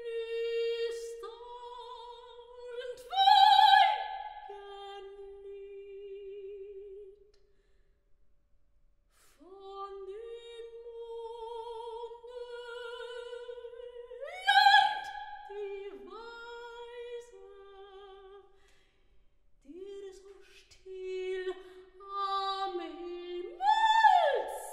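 A woman's operatic voice singing a slow art-song lullaby in long phrases with wide vibrato, separated by brief pauses. Three times a phrase leaps up to a loud high note.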